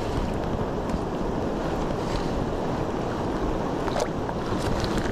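Steady rush of a river flowing over rocks, with some wind noise on the microphone.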